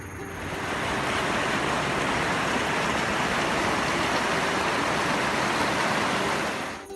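Rain-swollen, muddy river rushing fast over rocks: a steady rush of water that swells about half a second in and falls away near the end.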